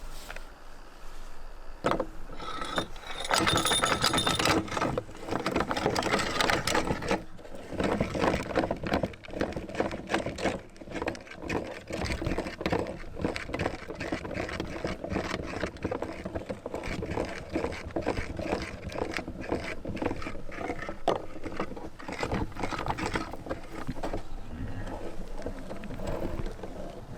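Electric meat grinder running with soap being fed through it: a steady motor hum under dense crackling and clicking as the soap is crushed and forced through. It starts about two seconds in and is loudest for the next few seconds.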